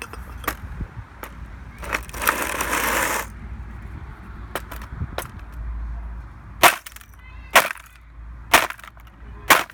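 A MacBook being smashed: a run of sharp cracking blows, with a harsh crunching burst about two seconds in. Four loud blows land about a second apart near the end.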